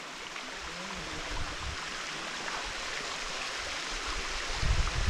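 Steady rush of water running in a stream, with low rumbling coming in near the end.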